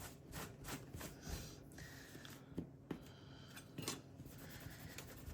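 Faint handling sounds of a laptop CPU fan part being wiped clean with an alcohol-dampened cloth: light rubbing with scattered small clicks and knocks.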